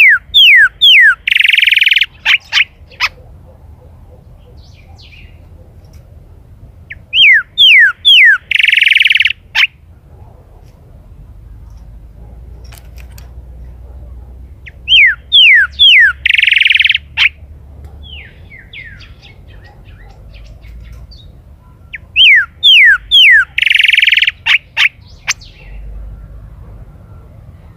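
Golden-billed saltator (chalchalero) singing, four times: each phrase is a quick run of about four downslurred whistles ending in a longer buzzy note, repeated about every seven to eight seconds.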